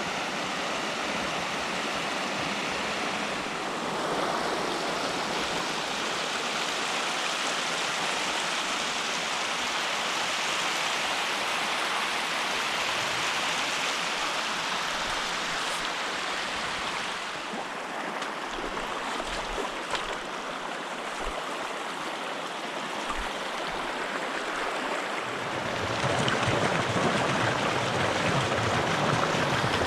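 Small mountain creek running over rocks: a steady rush of water that grows somewhat louder near the end.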